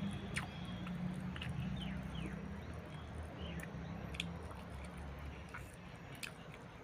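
A person chewing food close to the microphone, with scattered small wet mouth clicks over a low steady hum.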